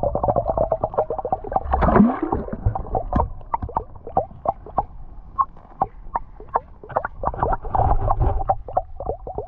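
Muffled underwater gurgling from a camera microphone submerged in river water, with dense, irregular clicking and popping throughout. A low rumble swells about two seconds in and again near the end.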